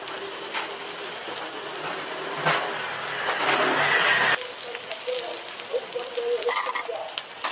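Mackerel fillets sizzling and crackling on a wire grill over a coal-briquette fire. A fillet has just been turned with tongs, and a louder hiss swells about three seconds in and stops abruptly.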